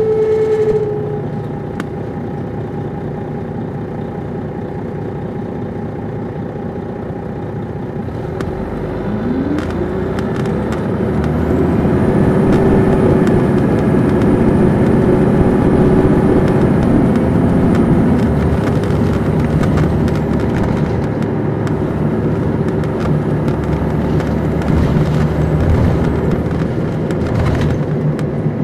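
Detroit Diesel Series 60 diesel engine of a 2002 MCI D4500 coach bus, heard on board. It runs low and steady at first. About nine seconds in it speeds up with a rising pitch and gets louder as the bus pulls away, with a faint high whine over it, then settles to a steadier run.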